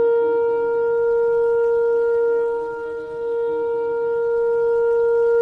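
Shofar (ram's horn) sounding one long, steady held note. A lower wavering tone beneath it fades out about halfway through.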